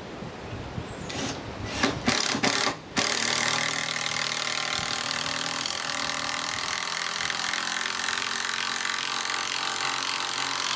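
Cordless drill-driver working into the timber wall of a summer house through a strut channel: a few short trigger bursts, then a long steady run of about eight seconds.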